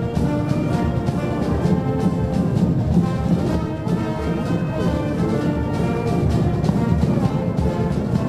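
Marching wind band playing a march: brass and saxophones over drums keeping a steady beat.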